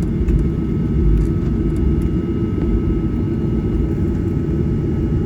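Steady low rumble of a Boeing 737-800 cabin at the gate, with a faint steady whine above it, typical of the air-conditioning packs and APU running after engine shutdown.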